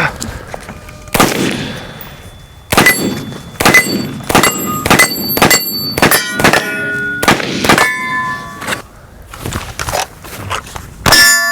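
A string of gunshots fired at steel targets, about a dozen in quick succession, each hit followed by the clear ringing ping of the steel plate; a pause near the end before one more shot.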